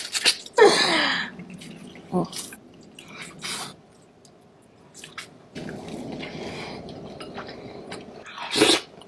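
Close-up eating sounds: a person biting into and chewing meat, with wet mouth clicks and smacks. A short falling vocal sound comes about a second in, and there is a louder burst near the end.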